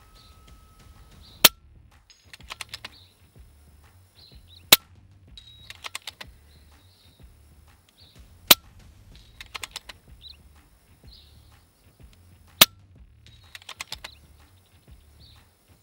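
Four shots from a silenced FX Crown Mk2 .177 PCP air rifle firing slugs, each a sharp crack, about three to four seconds apart. About a second after each shot comes a quick rattle of small metallic clicks.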